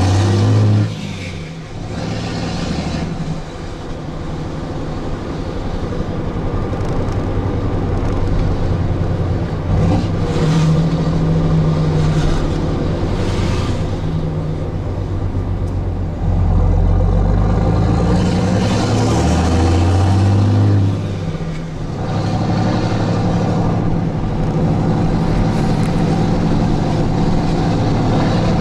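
Straight-piped 6.7L Cummins inline-six turbo diesel of a Ram 3500, through a 5-inch side-exit exhaust, heard from inside the cab while driving. Its variable-geometry turbo is tuned for the older 5.9-style Cummins sound. The engine note drops off about a second in, builds back slowly, and pulls harder and louder for several seconds a little past halfway before easing again.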